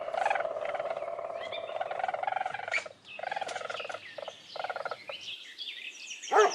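Weasel trilling in a rapid, buzzy chatter: one long run of nearly three seconds, then several shorter bursts.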